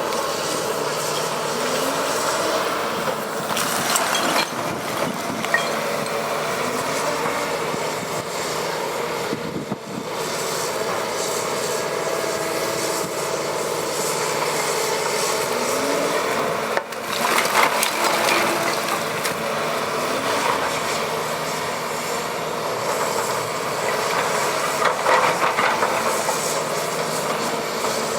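Caterpillar 319D hydraulic excavator running, its diesel engine and hydraulics holding steady tones while a lower tone slides up and down as the machine works. Louder, rougher scraping noise comes in about 17 seconds in and again near the end.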